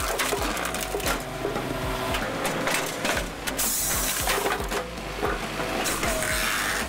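Posch Spaltfix K-440 firewood processor running and splitting a log section into pieces: a steady machine hum with many irregular knocks and clatter as the wood is forced through the splitting wedge.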